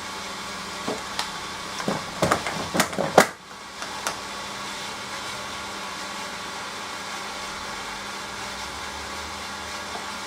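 Hoover AXI washing machine running on its delicate 40°C programme: a steady hum and hiss, with a cluster of sharp clicks and knocks from about one to three seconds in, the last and loudest followed by a brief dip in the hum.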